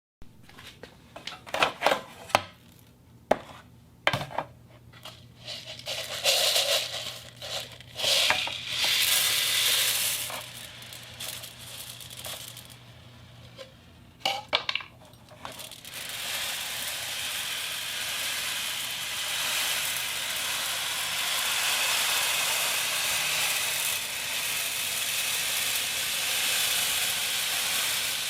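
Foley beach sounds made with small hard objects: scattered clicks, knocks and short swells of hiss. About halfway through this gives way to a steady, even hiss standing in for surf.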